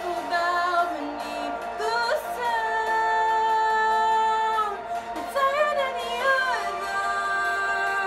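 A woman singing solo, with notes that bend and slide and one long note held in the middle.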